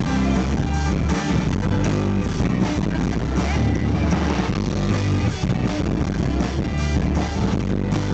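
Live rock band playing an instrumental passage between vocal lines, electric guitar over a steady beat, recorded loud from beside the PA speakers.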